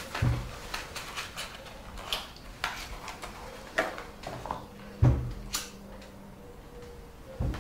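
Small household handling sounds at a kitchen table: scattered light clicks and taps, two dull thumps, and a lighter flicked to light a cigarette, over a faint steady hum.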